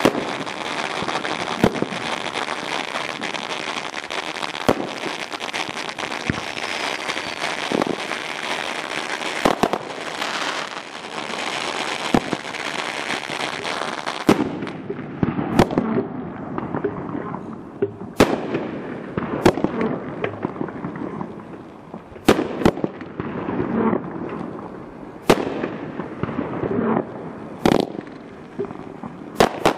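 Dominator 'Bigger Than Yours' 500-gram fireworks cake firing: aerial shots bursting with sharp bangs every one to two seconds. Through the first half they sit over a dense steady hiss; about halfway the hiss drops away, leaving separate bangs over a lower rumble and crackle.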